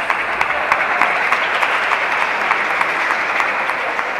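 Applause and crowd noise echoing in an indoor sports hall: a steady dense clatter of clapping with many sharp clicks through it.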